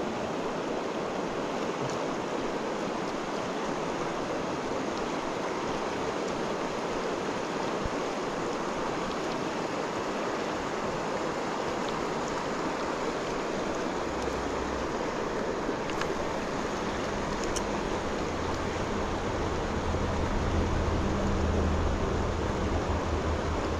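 Steady rush of a fast mountain river flowing over rocks. A low rumble rises in the second half, with a few faint clicks in the middle.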